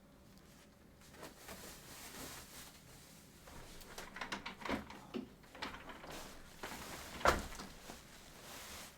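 Handling noises as a portable keyboard is set on its stand: rustling and scraping with several knocks, the loudest a thump about seven seconds in.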